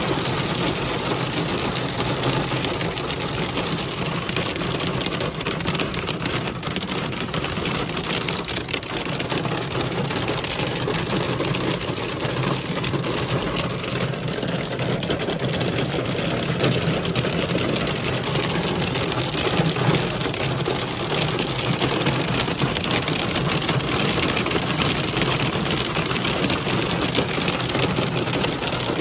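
Heavy rain mixed with hail beating on a car's windshield and roof, heard from inside the cabin: a dense, unbroken clatter of impacts with a steady low hum underneath.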